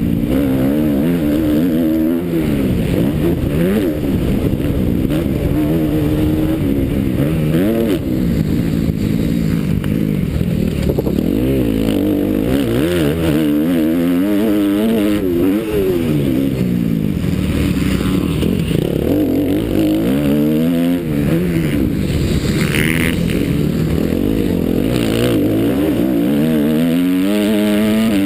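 Motocross dirt bike engine revving hard close up, its pitch climbing and falling over and over as the rider accelerates and backs off around the track.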